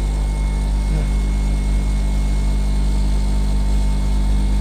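Steady mechanical hum of a continuously running machine, with a few constant tones over a deep drone.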